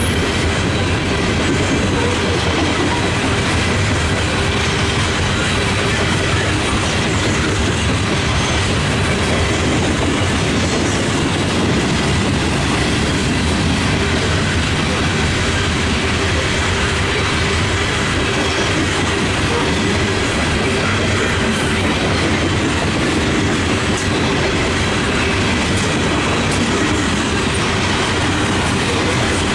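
Loaded coal hopper cars of a freight train rolling past, their wheels making a steady rumble on the rails.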